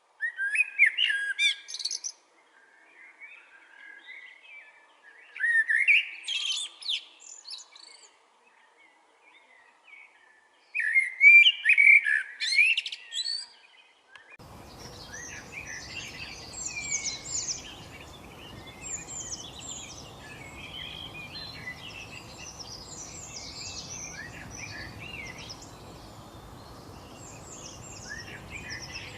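Songbird singing in three loud phrases of about two seconds each, with quieter calls between. About halfway through the sound changes to a different recording: many birds chirping over steady background noise.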